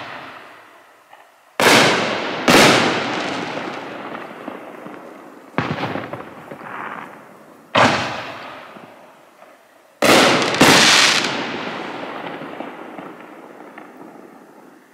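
'Dual Exhaust' 6-inch consumer canister shells being fired: about six loud, sharp booms, some in close pairs, each trailing off in a long echo.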